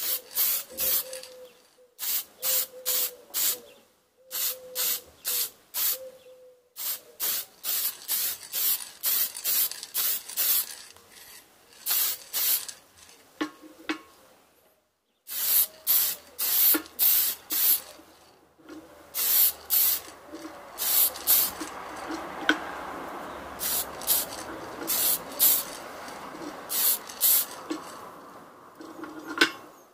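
Aerosol spray can spraying onto a wooden hammer handle in many short bursts, grouped in runs of three to five squirts with short pauses between them.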